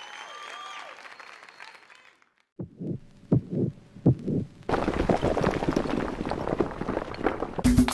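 Closing music fades out into a moment of silence. Then comes a logo sound effect: about five deep, heartbeat-like thumps, followed by a dense crackling rush of crumbling debris. Loud music starts near the end.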